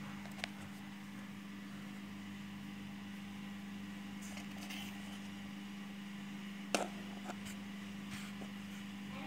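Steady low hum, like a fan or appliance running, with a couple of light clicks: a small one about half a second in and a sharper one near seven seconds.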